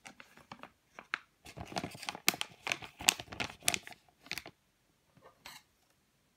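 Plastic toy packaging bag crinkling and crackling as it is handled: a quick run of sharp crackles for about four seconds, then a couple of fainter rustles.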